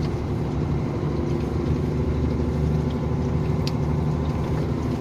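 KAMAZ truck's diesel engine running steadily while driving, heard inside the cab as an even low drone, with a single faint click a little past halfway.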